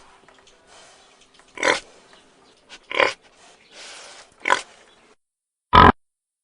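Domestic pigs grunting: short separate grunts about a second and a half apart, with the loudest one near the end.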